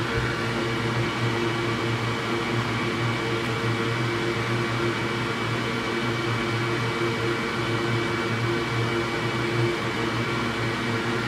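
Steady machine hum over an even hiss, unchanging throughout: a fan or small mains-powered motor running.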